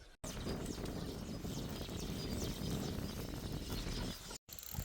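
Small birds chirping repeatedly, with short high calls, over a steady outdoor background hiss and rumble.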